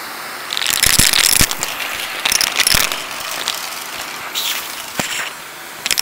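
Vacuum cleaner running with coins being sucked up through its hose nozzle, rattling and clattering along the hose. The clatter is dense from about half a second in to about three seconds, then thins to a few single clinks.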